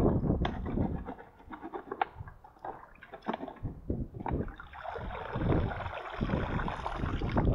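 Water splashing and sloshing as a plastic bottle bait-fish trap is rinsed by hand in shallow river water, with irregular splashes and knocks. In the second half the splashing turns into a steadier rush of water pouring and draining from the bottle as it is lifted out.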